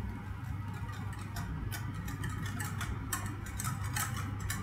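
Wire whisk stirring a thick roux paste in a stainless steel saucepan, its wires clicking and scraping against the pot in rapid, irregular ticks, over a steady low hum.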